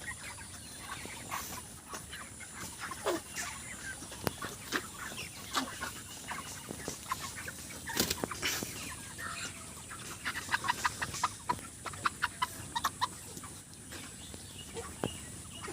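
A flock of 37-day-old broiler chickens clucking, many short overlapping calls, growing busier about ten seconds in.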